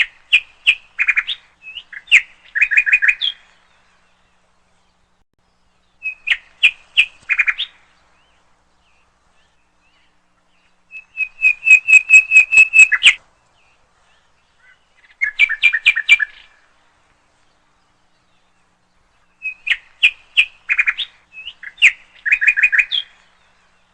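A songbird singing in five separate bursts, each a quick run of sharp repeated chirps lasting two to three seconds, with pauses of a few seconds between bursts.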